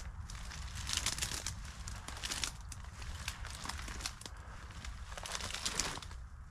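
Dry, thorny brush and branches crackling and scraping as a person pushes through a thicket on foot, in a string of short rustles.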